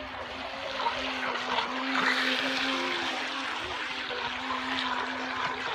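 Toy-grade RC jet boat's small electric motor running with a steady whine, over the hiss and splash of the water it throws up as it speeds across a pool. The water noise swells about two seconds in.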